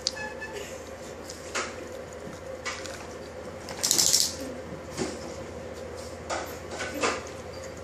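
Scattered clicks and scuffs from a teacup Chihuahua and an American Eskimo dog playing on a parquet floor and rug, with a short hiss about four seconds in.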